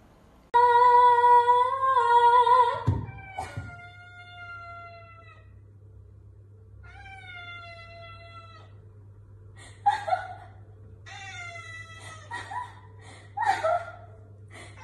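Domestic cat meowing: one long, loud, drawn-out meow about half a second in, then two shorter meows that fall in pitch, and a quick run of short meows near the end.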